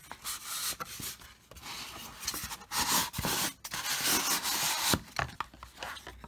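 Cardboard box and packaging being handled and moved about: rustling and scraping, loudest in the middle, with a few light knocks.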